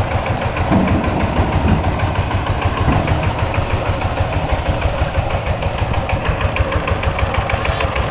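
Single-cylinder diesel engine of a walk-behind power tiller pulling a loaded trolley, running steadily at low speed with an even, regular pulsing beat.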